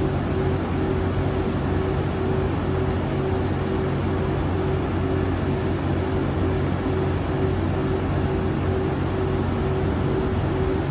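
JNR EF81 electric locomotive standing still, its auxiliary equipment running in a steady drone with a few held tones over a rushing noise.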